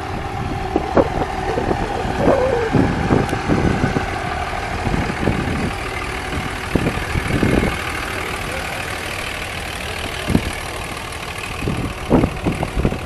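Demolition derby cars' engines running at idle, with many short irregular loud spikes over the steady engine noise.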